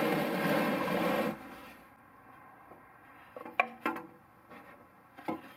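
Plastic oil drain pan dragged across a concrete floor: a rough scrape lasting about a second. It is followed by a few light clicks and knocks as a gloved hand handles the canister oil filter under the engine.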